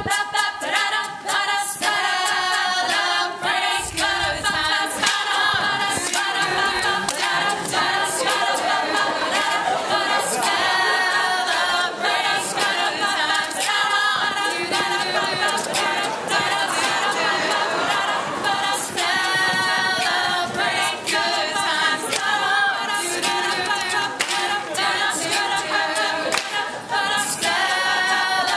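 A mixed men's and women's a cappella group singing an upbeat song in several voice parts, with sharp percussive beats through it.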